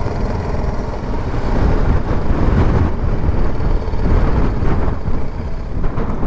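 Strong wind buffeting the microphone in uneven gusts, over a motorcycle engine running. The wind gets louder about two seconds in.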